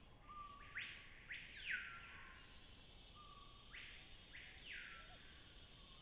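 Faint bird calls: two phrases of rising-then-falling notes, one about half a second in and one about four seconds in, over a soft background hiss.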